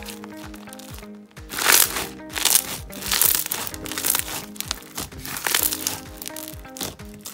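Turquoise fishbowl slime, still full of bubbles, being squeezed and pressed by hand, giving off irregular runs of sharp pops as trapped air bursts. The loudest run comes about two seconds in. Background music plays steadily underneath.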